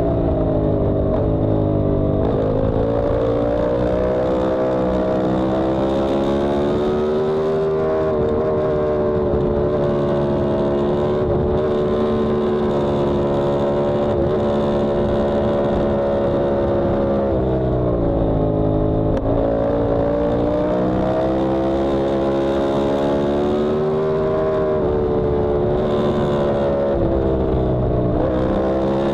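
Yamaha R1M's crossplane inline-four engine running hard at high revs on a racetrack, its pitch holding high on the straights and dipping then climbing again three times, near the start, about two-thirds through and near the end, as the bike slows for corners and accelerates out.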